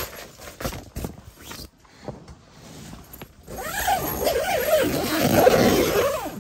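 Tent door zipper being pulled closed along the nylon door: a long zip that starts about three and a half seconds in and lasts nearly three seconds, its pitch wavering as the pull speeds up and slows. Before it, the door fabric rustles and there are a few small clicks of handling.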